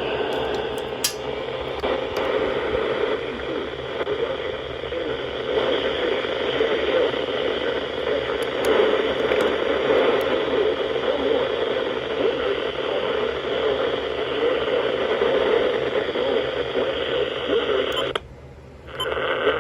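Noisy radio reception: a steady hiss of static over muffled radio audio that sounds thin, as through a narrow radio channel. It drops out briefly near the end, then comes back.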